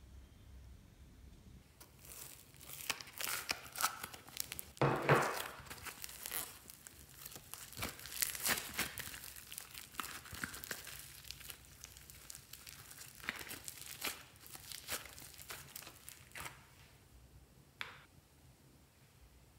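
Red textured slime being squeezed, stretched and pulled apart by hand: a long run of small crackles and pops that starts about two seconds in, is densest around five seconds, and thins out near the end with one last pop.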